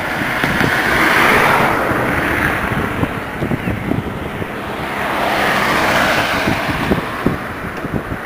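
Wind buffeting the microphone and road noise from a moving car. The rush swells twice, with many short low thumps from gusts hitting the mic.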